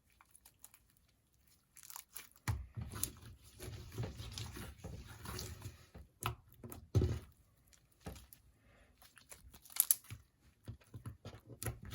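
Hands kneading and stretching sticky slime as activator is worked in. Irregular small clicks, crackles and squishes start about two seconds in.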